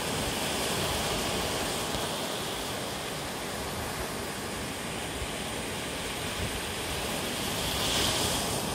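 Surf breaking and washing up a sandy beach: a steady rush of foam, with a louder wave breaking near the end.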